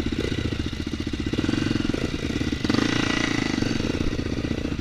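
Single-cylinder four-stroke trail motorcycle engine running, with a fast, even thumping; it briefly gets louder about two and a half seconds in.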